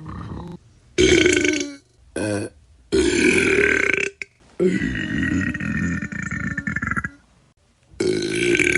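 Person belching in a series of loud burps with short silences between: one of under a second, a very brief one, a longer one, then a long drawn-out belch of about two and a half seconds, and another starting near the end.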